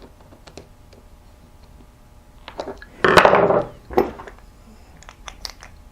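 Small clicks and taps of tools working on a wooden strap cutter as the screws holding its razor blade are tightened, with a louder scraping rasp about three seconds in and a shorter one a second later.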